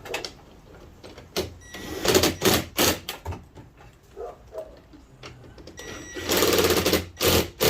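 A small electric motor buzzing in short bursts: a run of about a second, then after a pause a longer run of about a second and a short one near the end.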